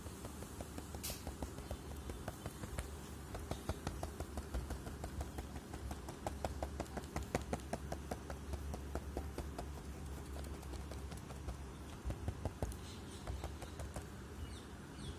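Bundle of cotton swabs dabbing paint dots onto paper: quick light taps, several a second, thinning out near the end.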